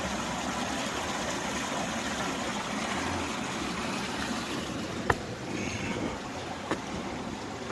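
Stream water rushing steadily through the gaps beneath a boulder field. Two sharp clicks stand out, about five seconds in and again just under seven seconds in.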